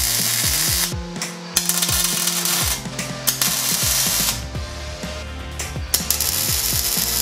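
Arc welding on a steel tube bumper, the arc crackling in several stop-start bursts of about a second each. Background music with a deep beat runs underneath.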